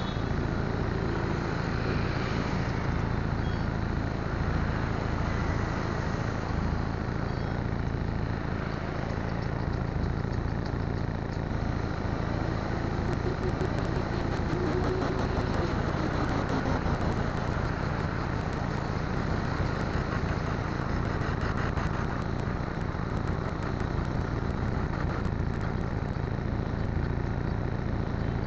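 Steady rumble of road traffic and engine noise, with one slow rise and fall in pitch around the middle.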